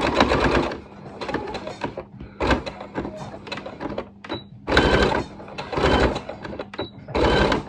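Electric domestic sewing machine stitching in several short runs, stopping and starting, as it sews back and forth over the end of an elastic ear loop to secure it.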